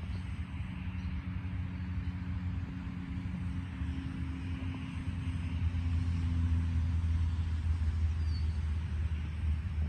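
A vehicle engine running with a steady, low hum, over a soft hiss of wind; it grows a little louder about six seconds in.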